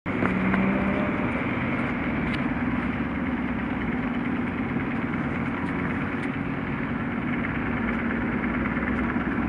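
ER9M electric multiple unit approaching along the station platform: a steady hum from its electrical equipment with rolling noise.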